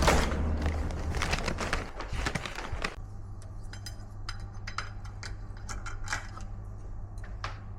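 Cutlery and dishes clinking at a breakfast table: a run of short, sharp taps and clinks, some with a brief ring, over a steady low hum. During the first few seconds a louder low rumble with knocks covers them.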